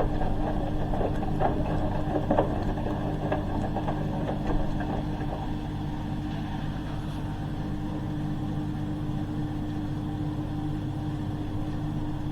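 Hoover H-wash 300 Plus washing machine draining ahead of its first intermediate spin: a steady hum with a constant tone, and short knocks and sloshing from the drum in the first few seconds.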